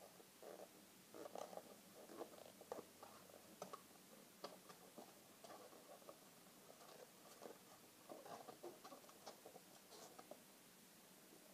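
Faint, irregular squeaks and rubbing of inflated latex twisting balloons as hands twist and tuck them together.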